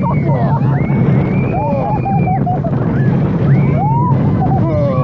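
Wild Train roller coaster running along its track from the front seat: a steady loud rumble, with high squealing tones that rise and fall as the train takes the curves.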